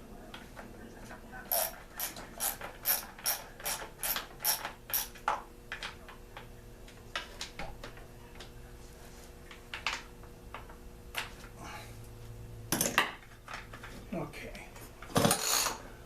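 Hand tools working on a Homelite chainsaw during teardown: a run of quick, evenly spaced metallic clicks, about three a second, then scattered clicks and two louder clunks near the end.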